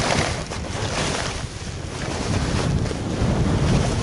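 Wind rushing over the microphone while skiing downhill, with skis hissing through the snow in surges as they turn.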